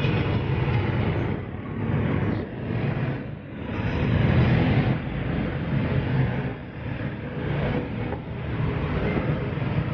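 Wind buffeting the microphone while the camera moves: a low rumbling rush that swells and fades every second or two.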